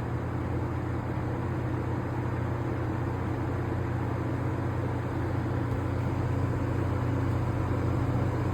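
Vintage Air King PL20E box fan, with its GE motor and metal blades, running on low in reverse: a steady motor hum under an even rush of air.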